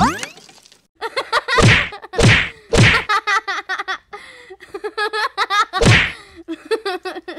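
A Shiba Inu giving loud sharp barks, four of them about 1.6, 2.2, 2.8 and 5.9 seconds in, with wavering, whining cries between them.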